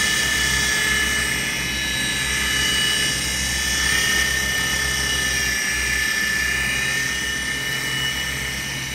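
Auldey SkyRover Navigator toy RC helicopter in flight: a steady high whine from its small electric motors over the low flutter of its spinning rotor blades. The pitch wavers slightly about four seconds in.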